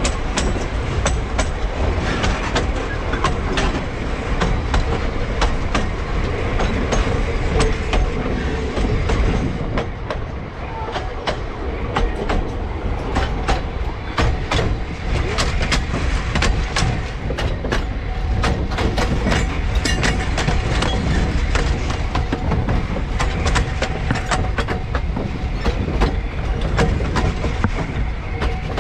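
Narrow-gauge steam train rolling along with a steady rumble. Its wheels clatter over the rail joints with many sharp clicks and knocks.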